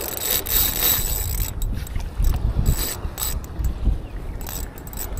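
Spinning fishing reel working, a mechanical whirring with irregular clicking.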